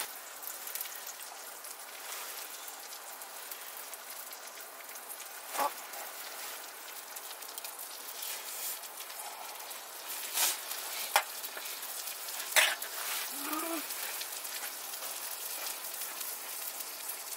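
Pork belly sizzling on a camp grill: a steady frying hiss, with a few sharp clicks and taps scattered through it.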